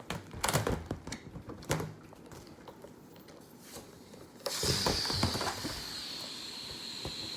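A few handling knocks and rubs on a large balloon, then about four and a half seconds in air starts rushing out of its neck: a steady hiss with a high thin whistle that dips slightly at first and then holds level.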